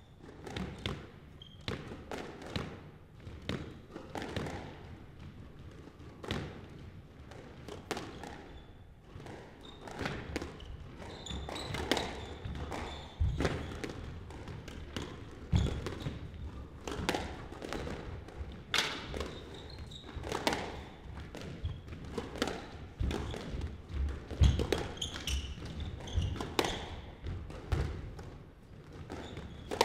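Squash rally: the ball cracking off rackets and the court walls about once a second, irregularly, with thuds of players' feet on the wooden floor. The strikes come faster and louder from about ten seconds in.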